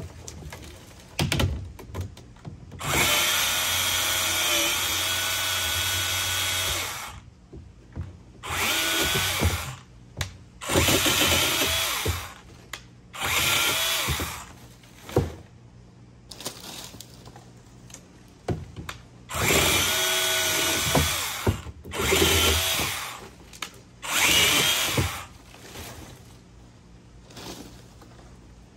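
Vanpore cordless mini chainsaw cutting palm fronds in about seven bursts of one to four seconds. Its electric motor whines up and its pitch sags as the chain bites into the fronds.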